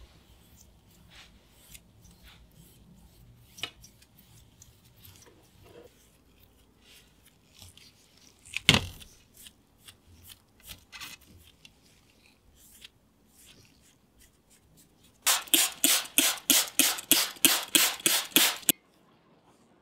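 Hand trigger spray bottle pumped rapidly near the end, about four hissing squirts a second for some three and a half seconds. Before that, light handling clicks on small metal parts and one sharp knock about nine seconds in.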